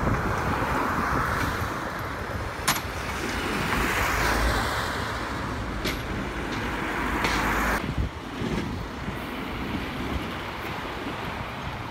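A skip loader lorry's diesel engine and tyres as it drives past and away round a roundabout, with three sharp clicks along the way. The sound drops off about eight seconds in, and another lorry's engine follows at a lower level.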